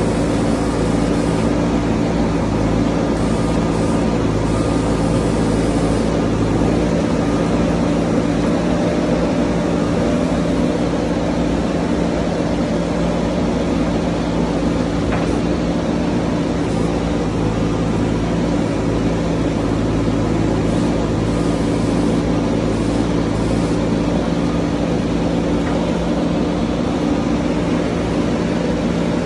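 JCB backhoe loader's diesel engine running steadily with a constant drone while the backhoe arm digs out a ditch.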